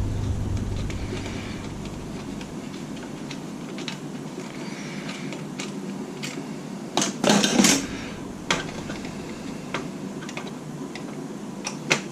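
Tools and metal parts being handled while a game console is taken apart: scattered light clicks and clinks, with a louder rattle about seven seconds in.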